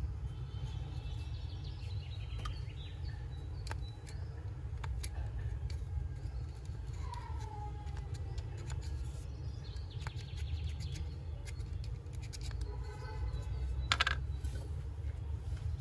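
Light clicks and taps of plastic juicer parts being handled and fitted together, with one sharper click near the end, over a low steady rumble. Birds chirp and trill in the background a few times.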